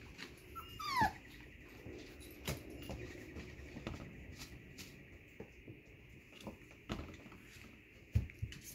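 Doodle puppies play-fighting: one short yelp falling in pitch about a second in, with scattered knocks and scuffles of paws and bodies against each other and the pen floor, and a sharper knock near the end.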